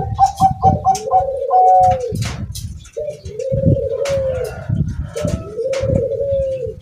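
Zebra dove (perkutut, Bangkok song strain) cooing in repeated trilled phrases, about three of them. Wind rumbles on the microphone underneath.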